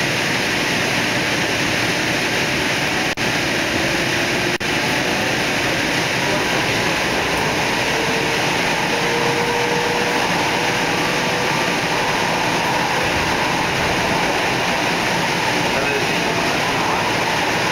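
Light rail train in motion heard from inside the car: a steady rushing rumble of wheels on track, with a faint whine that comes and goes.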